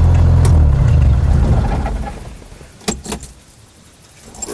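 A loud, low, steady rumble that fades away over the first two seconds, followed by two sharp clicks close together about three seconds in.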